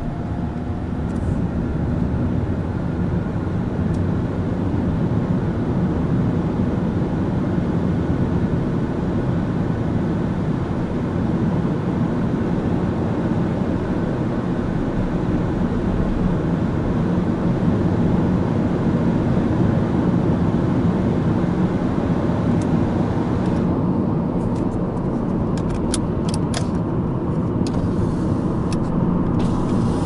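Steady in-cabin drone of a Subaru Impreza Sport 1.6i-L under way, its FB16 flat-four engine and CVT running under the road noise. It gets a little louder over the first few seconds, and a scatter of light clicks comes near the end.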